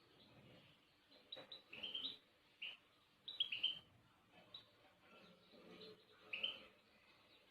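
Small songbirds chirping: short, high twittering notes in scattered clusters with gaps between.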